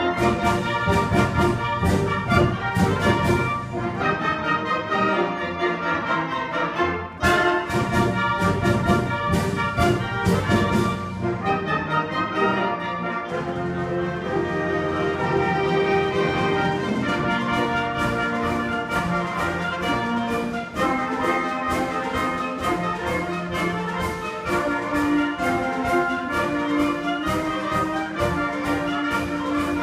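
Symphonic wind band playing, with brass prominent, and a brief break in the sound about seven seconds in.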